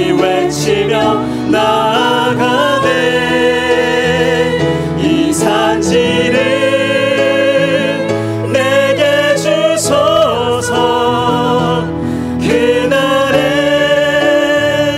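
A church praise team of male and female voices singing a worship song into microphones over musical accompaniment. The voices hold several long notes with vibrato.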